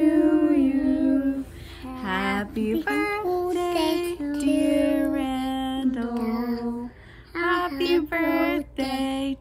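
A woman and young children singing a song together in held notes that step up and down in pitch, with short breaks between phrases.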